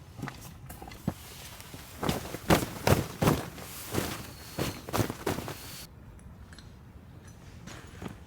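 Footsteps walking in powder snow, about two steps a second, that stop abruptly after about six seconds.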